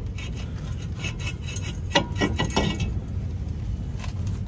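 Front brake rotor being worked off the rusty wheel hub by hand: a run of scraping knocks as it slides over the wheel studs, and one loud metallic clang that rings briefly about two seconds in.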